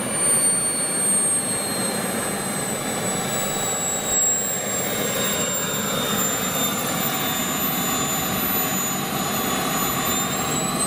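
Jetsmunt M210 model jet turbine in a 1/5-scale Dassault Rafale, running at low power on the ground as the jet taxis in. A steady high-pitched whine sits over a rushing exhaust noise, and the whine drifts slowly lower.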